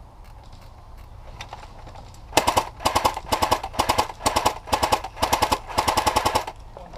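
Airsoft automatic electric gun firing in a string of short, rapid bursts that start about two and a half seconds in and stop shortly before the end.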